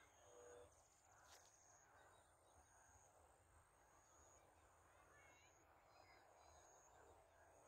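Near silence: faint rural outdoor ambience, with short, faint high chirps now and then.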